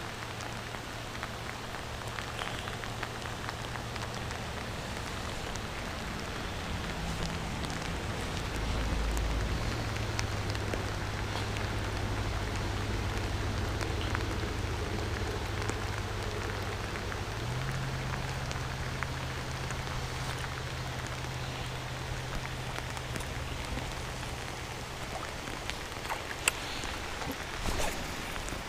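Heavy, steady rain falling on the lake surface and the kayak, with a few sharp knocks near the end.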